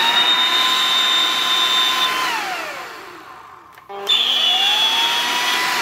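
Ryobi 40V Jet Fan blower (RY40403) run twice: its brushed DC motor and fan spin up with a rising whine, run steadily for about two seconds, then wind down, starting again about four seconds in. The fan is driven through a temporary motor-to-fan coupling, the original coupling having spun on its shaft.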